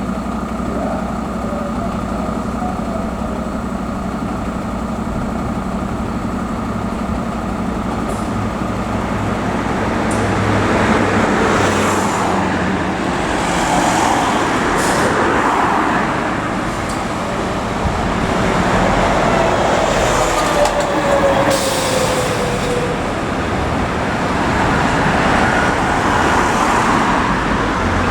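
Fire trucks' diesel engines running steadily, with vehicles driving past in recurring swells of engine and tyre noise from about ten seconds in.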